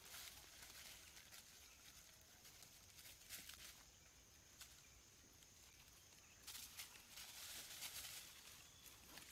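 Faint rustling and crackling of dry leaf litter under young macaques moving about, louder briefly about three seconds in and again for about two seconds near the end, over a faint steady high hiss.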